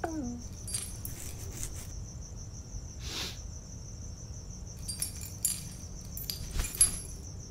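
Crickets chirping in a steady pulsing trill, with a ring of metal keys jangling in a few short bursts, loudest near the end.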